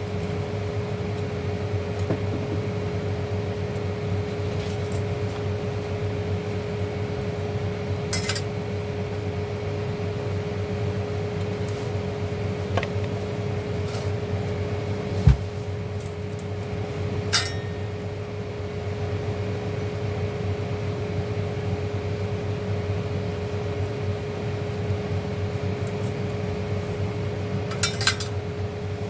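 Small hard parts clicking and clinking a handful of times as they are handled, over a steady hum with a constant tone. The sharpest click comes about halfway through.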